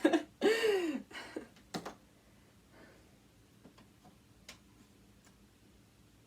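A short wordless voice sound, then a sharp click, followed by faint, irregularly spaced small ticks and clicks of tools and metal parts being handled on a sewing machine.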